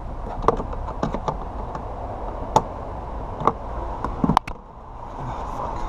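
Irregular light clicks and taps of a hand tool working a hard-to-reach screw in a car door panel, with a sharper double knock a little past four seconds in.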